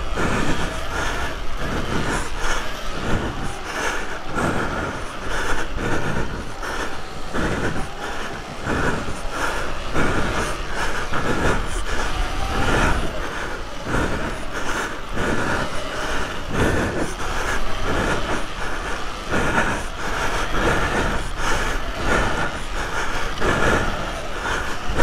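Electric off-road bike being ridden over a bumpy dirt track: continuous clattering and rattling with irregular knocks, rising and falling in quick pulses as it goes over the bumps.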